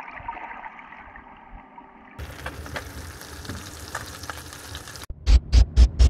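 Sea water splashing and fizzing, a steady crackly hiss. About five seconds in, a music beat starts, with strong pulses about four times a second.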